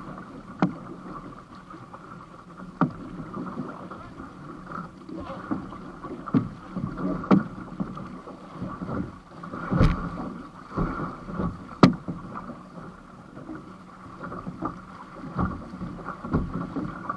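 Water sloshing and slapping against the float of an outrigger canoe under way through choppy water, over a steady rushing noise. Sharp knocks come at uneven intervals every few seconds.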